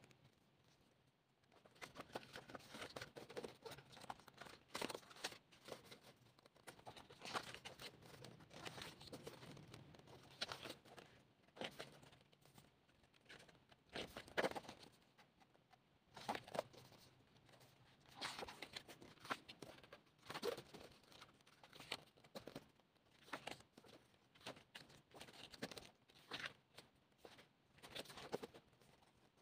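Glossy pages of a K-pop album photobook being turned and handled, with quiet, irregular rustles and paper slaps as each page flips and the book shifts in the hands.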